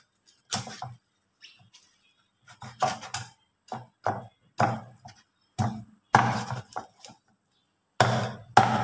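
Steel meat cleaver chopping through a whole fish on a round wooden chopping block: about ten heavy chops, unevenly spaced, hacking through the hard fish.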